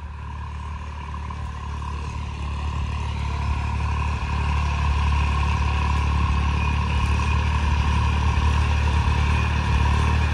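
Massey Ferguson 9500 tractor's diesel engine running steadily in first gear while pulling a maize planter, growing louder over the first five seconds or so and then holding steady.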